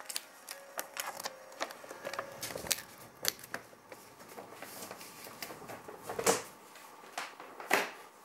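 Light, irregular tapping and clicking on a hard object, a few taps a second, with two louder knocks about six and nearly eight seconds in.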